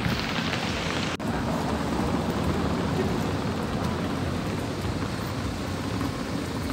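Steady rushing outdoor noise, with one brief break about a second in.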